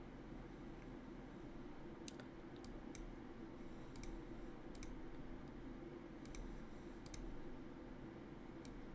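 Computer mouse clicking: about ten sharp, short clicks at irregular intervals, some in quick pairs, over a faint steady hum.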